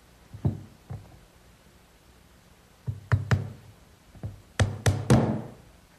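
Claw hammer driving brads into a glued pine frame joint: a couple of light taps about half a second in, then quick groups of three strikes around three seconds and again around five seconds in.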